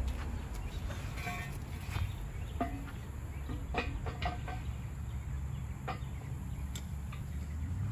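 Hand wrench clicking and clinking against the steel pallet-fork frame as a tine's retaining bolt is tightened: a few scattered short metallic clicks, some briefly ringing. A steady low rumble runs underneath.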